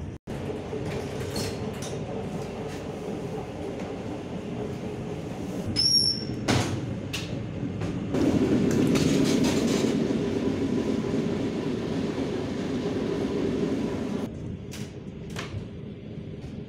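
Steady rumble and hum of a DPL1 diesel train heard from inside the passenger cars, growing louder for about six seconds in the middle while passing through the vestibule between cars, then dropping back. A brief high squeak and a few clicks come about six seconds in.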